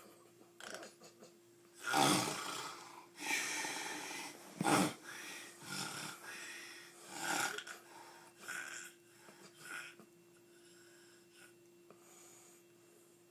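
Heavy snoring in a few long, noisy breaths through the first half, then shorter and fainter snorts, over a steady low hum.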